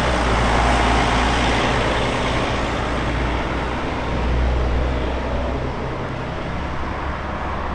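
Diesel city bus driving away, its engine a steady low drone under road noise that fades a little toward the end.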